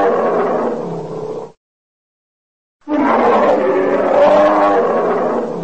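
A bear's roar, the same recording played twice: a loud, wavering call that fades out about a second and a half in, then after a second of silence starts again and fades near the end.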